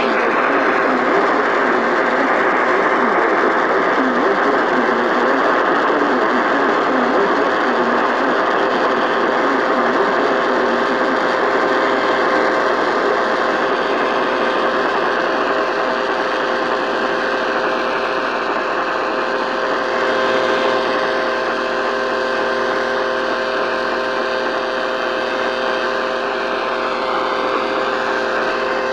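AM radio static: a loud, steady hiss with a few faint steady whistling tones running through it, starting abruptly.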